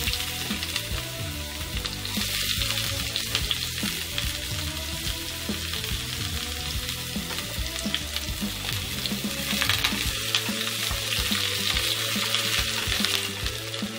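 Food sizzling in hot oil in a frying pan, starting suddenly, with background music underneath.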